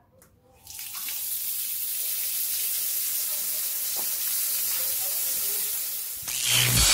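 A jet of water from an opened tap on a PVC pipe spraying onto a concrete floor, a steady hiss that starts about a second in. Near the end a louder whoosh comes in and cuts off sharply.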